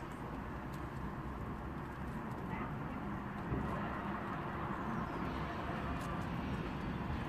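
A breeze blowing over the microphone: a steady low rustle and rumble.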